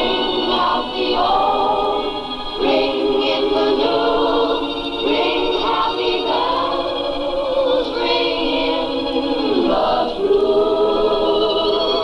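A vocal group singing close-harmony chords without words, several voices holding notes together and moving to a new chord every second or two, as the introduction to a song.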